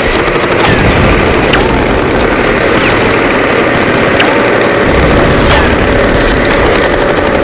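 Battle sounds: dense, continuous gunfire, with many sharp separate shots and booms over a loud, unbroken bed of noise.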